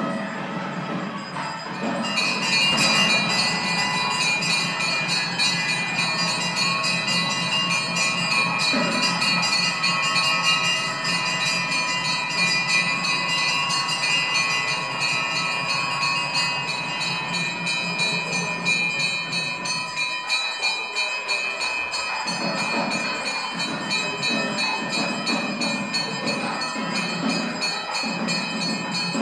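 Temple bells ringing rapidly and continuously, several pitches at once, starting suddenly about two seconds in, as the lamp-lit sanctum stands open for the lamp offering.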